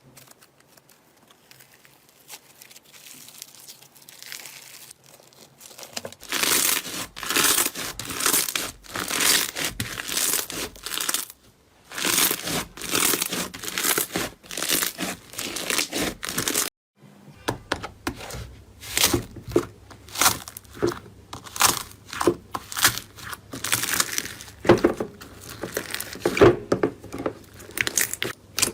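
Slime being stretched, folded and squeezed by hand, making dense crackling, crinkling and tearing sounds. It is faint for about the first six seconds, and after a brief break two thirds of the way in the sounds turn into sharper, separate clicking pops.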